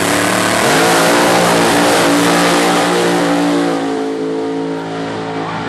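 Supercharged drag racing car launching from the start line at full throttle: a very loud engine note that is loudest for the first three seconds and fades somewhat as the car pulls away down the strip.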